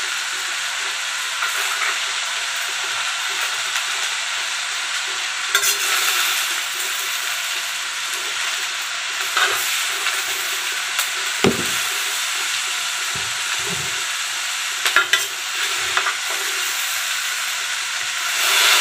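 Shredded cabbage sizzling steadily in hot oil in a stainless steel wok as it is stir-fried. A metal spatula tosses it, with a few sharp clicks and scrapes against the pan.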